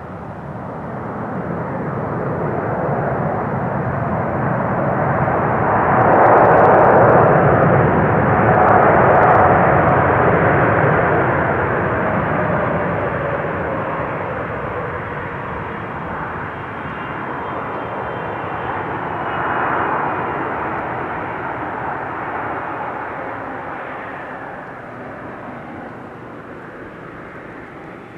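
Boeing 777F's GE90 jet engines roaring through the landing rollout, most likely in reverse thrust just after touchdown. The roar builds for about six seconds, peaks with a falling whine, swells once more briefly, then dies away as the engines spool down.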